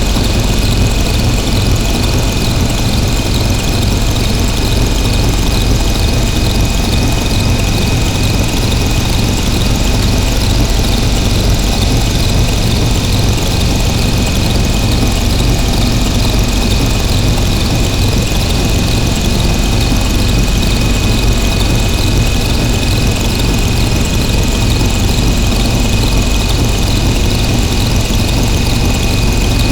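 Harsh noise drone from synthesizers run through distortion pedals: a loud, unbroken wall of distorted noise over a heavy low rumble, with a steady high whine held on top.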